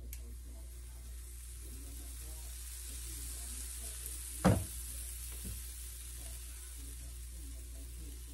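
Banana waffle batter sizzling on the hot plate of a waffle iron: a steady high hiss that starts as the batter is ladled on. About halfway through there is one sharp, loud knock, and a fainter one about a second later.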